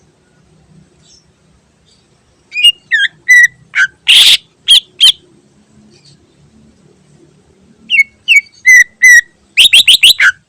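Green leafbird (cucak ijo) singing loud, sharp whistled notes in two runs: one about two and a half seconds in, and another near the end that closes with a quick string of slurred notes.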